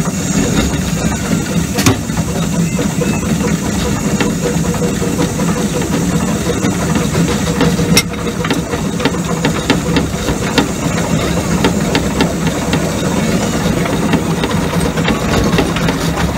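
7¼-inch gauge miniature steam locomotive running slowly, with a steady rumble from its running gear and irregular clicking and rattling from the wheels on the track. Two sharper clicks come about two and eight seconds in.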